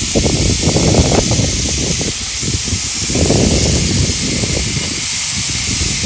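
Burger patties sizzling on the hot grill plate of a Ninja Woodfire electric grill: a steady hiss. Underneath it is irregular low rumbling with a few knocks as hot dogs are laid onto the grate.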